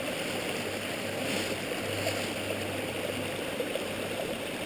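Steady rushing of a stream's running water.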